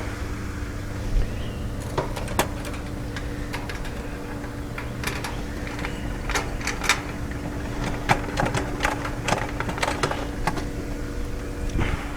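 Scattered clicks and light knocks of bolts and coop panel parts being handled and fitted during assembly, over a steady low hum.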